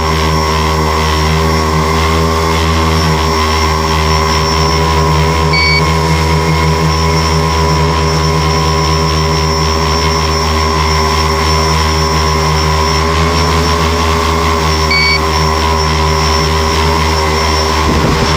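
Electric motors and propellers of a tricopter, running with a steady hum.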